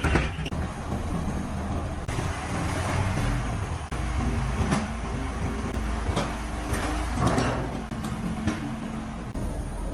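Factory machinery noise: a steady low rumble with scattered sharp clanks and knocks.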